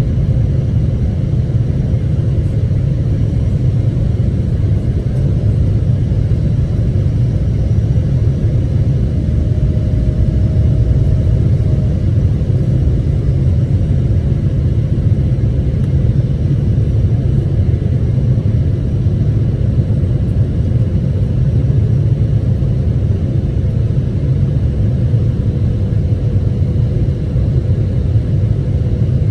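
Boeing 777-300ER's engines and airflow giving a steady low rumble, with a faint steady hum above it.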